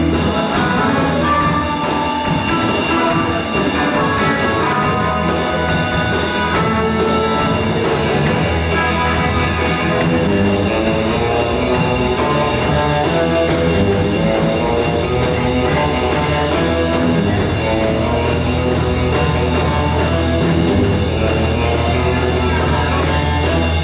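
Live electric blues band playing a 1950s-style blues number: two electric guitars, upright double bass, drum kit and amplified harmonica over a steady beat.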